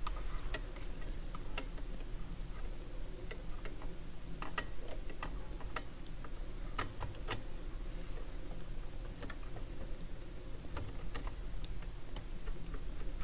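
Light, irregular clicks and taps of a screwdriver working a small screw into the metal chassis on a turntable's underside, over a steady low hum.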